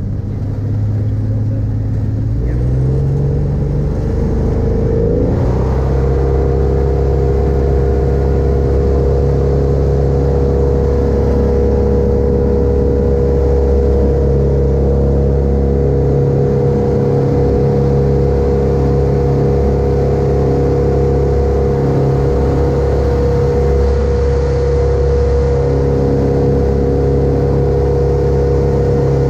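X-Air microlight's Rotax 582 two-stroke engine and propeller, heard from the cockpit, throttling up to take-off power over the first five seconds or so. It then runs steadily at full power through the take-off roll and climb-out.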